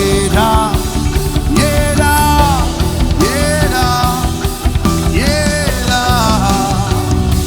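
Worship music from a full band: a dense, sustained backing with a lead melody that swoops up into held notes every second or two.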